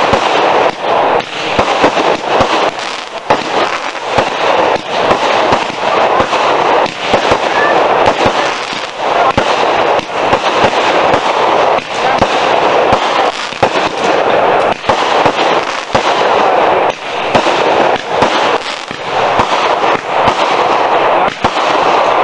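Consumer aerial fireworks going off without pause: a steady hiss of launches and burning stars under many sharp pops and bangs from the bursts.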